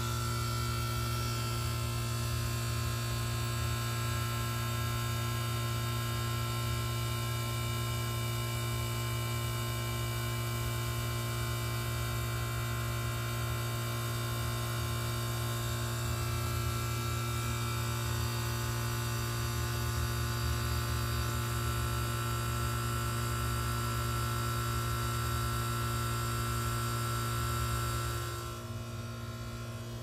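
Goodman GSZ13 heat pump's reciprocating compressor running through a defrost cycle: a steady, loud mechanical hum with many overtones over a light hiss. The sound drops in level and the hiss thins about two seconds before the end.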